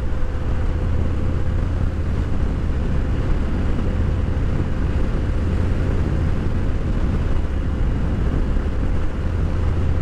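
Harley-Davidson Fat Bob 114's Milwaukee-Eight V-twin running through Rinehart 4.5-inch slip-on mufflers while riding, a steady deep rumble that is throaty rather than a sewing-machine sound.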